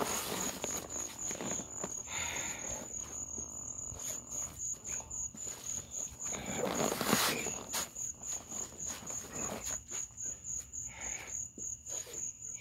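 Crickets chirping in a steady, even pulse of about three chirps a second. A brief rustling whoosh about seven seconds in is the loudest moment, with a softer one near two seconds.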